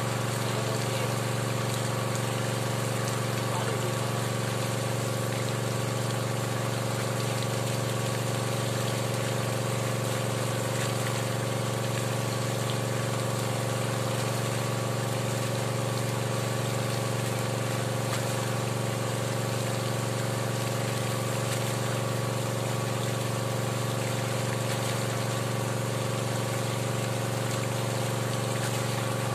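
Small engine-driven water pump running at a steady speed, forcing water down the drill pipe of a hand-turned bored well.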